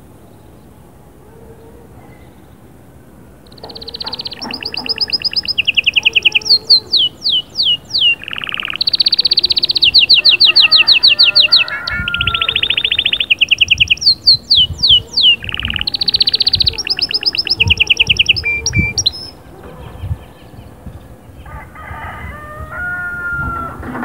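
Canary singing: a loud song of rapid rolling trills alternating with quick falling whistled notes, starting about three and a half seconds in and breaking off near twenty seconds, followed by a few softer calls.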